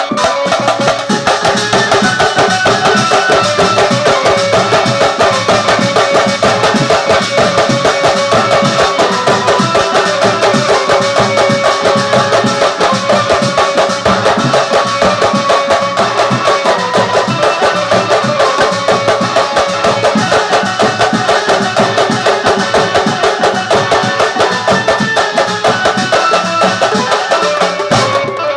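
Marfa band music: frame drums (dafs) and barrel drums beating a fast, steady rhythm, with a sustained melody line running over the drumming.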